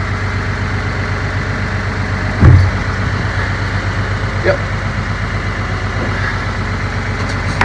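A 1984 Isuzu JCR500 school bus's engine idling steadily, with one thump about two and a half seconds in.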